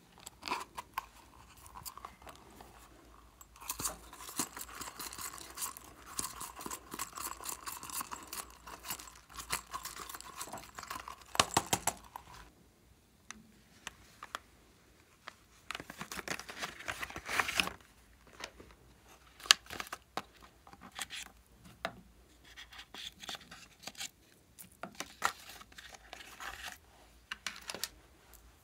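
Close-up handling of toys and packaging: long stretches of crinkling and scratching with scattered sharp clicks and taps.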